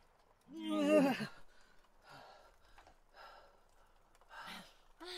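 A woman's voice lets out one strained, wavering groan about half a second in, followed by a few faint breaths.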